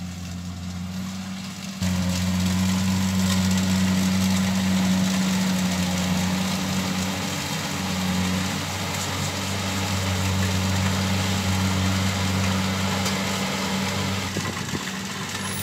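Diesel engine of a rice combine harvester running steadily with a low hum. It gets louder suddenly about two seconds in.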